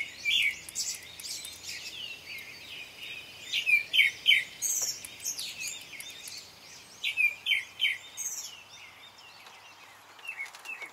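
Several songbirds calling at dawn, a chorus of short sharp chirps and quick trills in clusters over a faint steady hiss of the outdoors. The calls thin out near the end.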